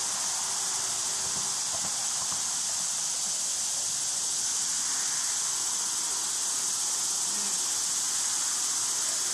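Steady, high-pitched drone of an insect chorus, running unbroken without a pause.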